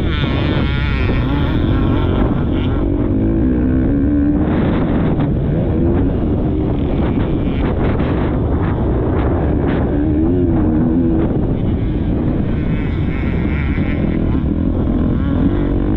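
Motocross bike engine revving up and down as the bike is raced around the track, heard from a helmet-mounted camera with heavy wind noise on the microphone.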